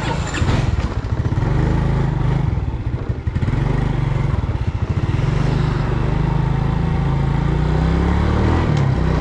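Small motor scooter engine running as the scooter rides off, with a sharp clatter about a third of a second in; near the end the engine note rises as it picks up speed.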